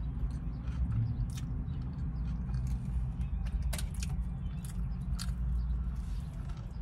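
Close-up mouth sounds of a person chewing a turkey sub and biting into it near the end, with scattered sharp wet smacking clicks, over a steady low hum.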